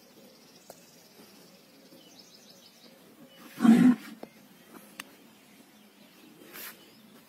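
A bull's short, loud, low call about halfway through, lasting about half a second, with a fainter short sound near the end.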